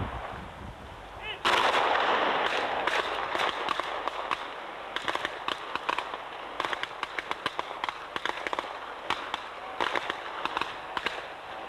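A line of about a dozen military-class pistols firing in a field pistol stage. Many shots go off at once about a second and a half in, followed by a long run of scattered, overlapping single shots at irregular spacing until near the end.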